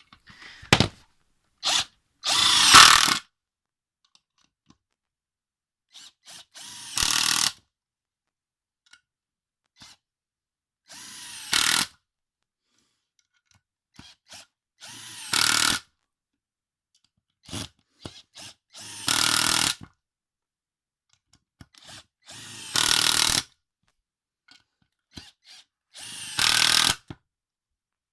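Cordless impact driver driving screws into timber: seven runs of about a second each, a few seconds apart, with a couple of short trigger blips near the start.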